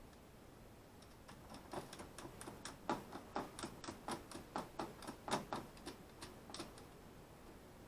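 A run of sharp light clicks, about three a second, starting about a second in and dying away about a second before the end.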